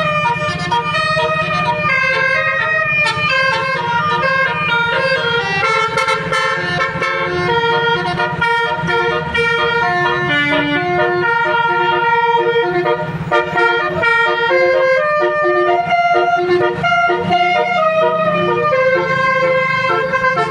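Telolet basuri musical air horn on a tour bus playing a melody of stepped tones, several at once, with the bus's engine running underneath.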